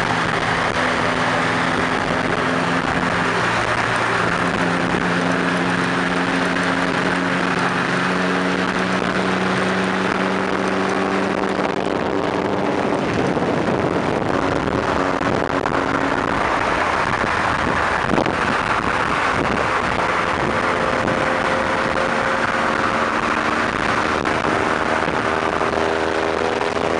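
Loud, steady wind rush and road noise from riding alongside cars at freeway speed, with a steady engine and exhaust drone underneath that shifts in pitch now and then.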